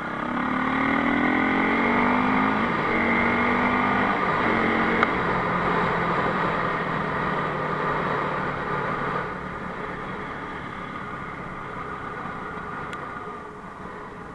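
Enduro motorcycle engine accelerating hard through several gears, its pitch climbing and falling back with each shift, then easing off about nine seconds in.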